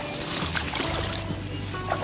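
Background music with held notes, with some faint scattered clicks underneath.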